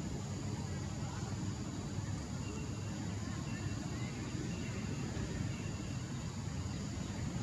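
Steady low outdoor rumble, with a few faint, short high-pitched chirps in the middle.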